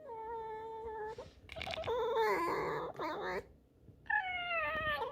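Pet fox's squeaky whining cries: a held whine, then a harsher screech, then a falling whine near the end.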